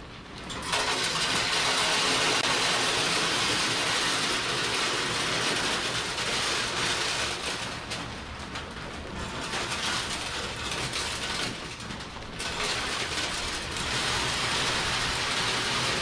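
Wood pellets pouring from a bag into the hopper of a Pit Boss Pro Series upright pellet smoker: a continuous rattling rush that starts about a second in and briefly thins twice.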